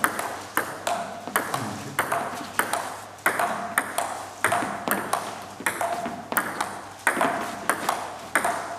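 Table tennis rally: the celluloid ball clicking alternately off the bats and the table, two to three sharp knocks a second, each with a short echo off the hall.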